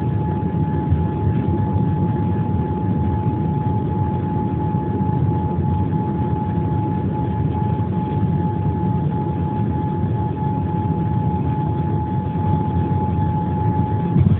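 Steady airliner cabin noise: a constant low drone from the jet engines with a steady high whine held over it.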